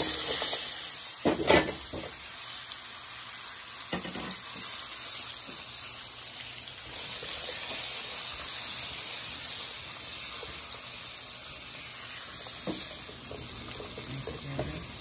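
Skin-on green banana slices sizzling in hot oil and turmeric in a pot, a steady hiss that is loudest just as they go in, with a few knocks in the first few seconds as they are tipped in and stirred.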